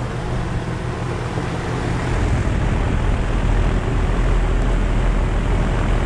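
2017 3.5-ton Rheem RP15 heat pump outdoor unit running in heat mode: a steady low hum under the rush of air from its condenser fan, driven by a Genteq fan motor. The sound grows louder about two seconds in.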